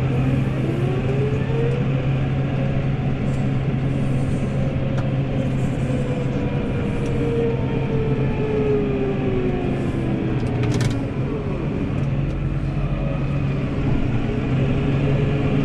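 New Holland tractor's diesel engine running steadily while it pushes a front snowplow blade, with a whine that slowly rises and falls in pitch.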